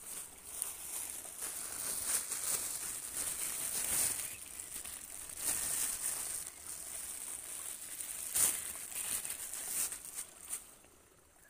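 Thin black plastic bag crinkling and rustling as it is handled, in an irregular run of sharp, crackly noises.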